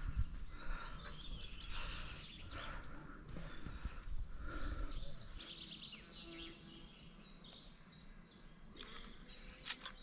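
Birds chirping and calling in the woods, over a low rumble that dies down about halfway through.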